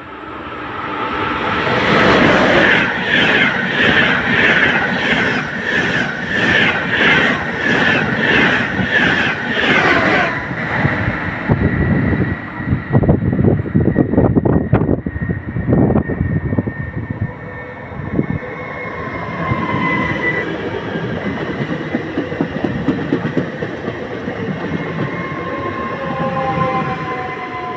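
Trains passing, with a rhythmic clickety-clack of wheels over rail joints at about two clicks a second. Then heavier, irregular low knocking and rumbling. In the last part, thin, high, steady squealing tones sound over the rolling noise.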